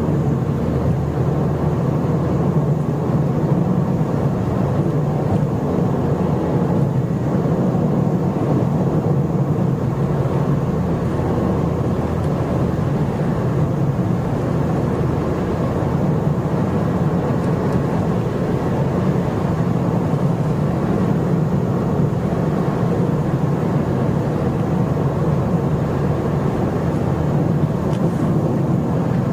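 Steady in-cabin driving noise of a 2012 Ford Fiesta under light throttle: engine and tyre hum, even and unbroken.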